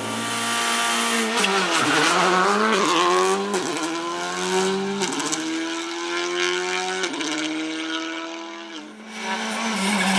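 Rally car engine at full throttle, climbing through the gears: the pitch rises and drops back at each upshift, about every one and a half to two seconds. Near the end the throttle lifts briefly, then the engine comes back on hard with some crackling.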